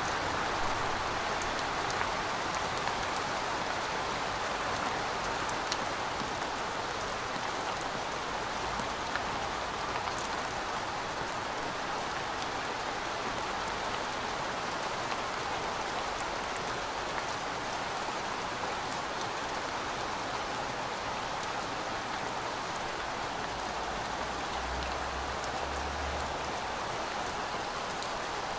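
Steady rain falling, an even hiss with scattered sharper ticks of individual drops. A faint, brief low rumble comes in near the end.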